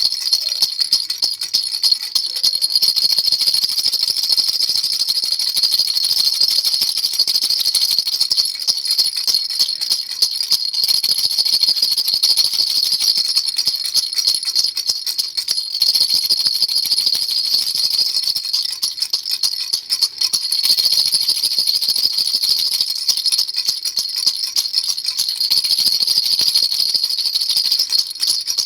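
Baby rattle shaken fast and without a break, a bright, high, bell-like shaking sound that dips briefly about two-thirds of the way through.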